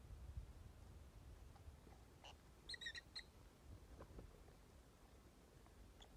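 Peach-faced lovebird giving a quick cluster of high chirps about three seconds in, against near silence with a few faint taps.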